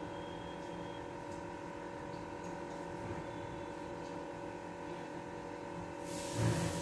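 Quiet, steady background hum with faint room tone. About six seconds in, a hiss starts and there is a short low thump.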